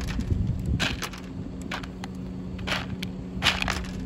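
Ostriches pecking feed pellets out of a plastic bucket: sharp, irregular pecks of beak on plastic, about half a dozen, over a steady low hum.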